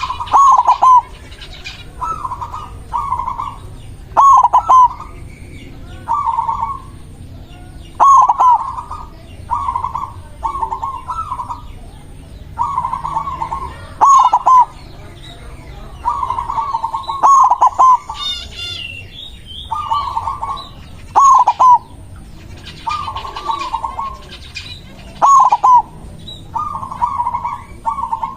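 Zebra dove (perkutut, white variety) singing in its full, frequent 'gacor' manner: short bursts of rapid staccato cooing repeated about every two seconds. Another small bird gives a brief high trill about two thirds of the way through.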